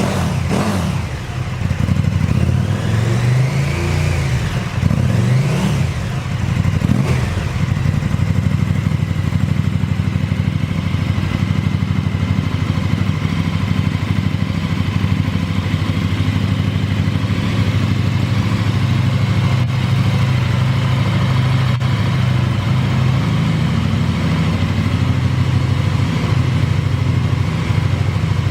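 KTM 1290 Super Duke R's 75° V-twin running through an Akrapovic exhaust. It is revved up and down a few times in the first several seconds, then settles into a steady idle.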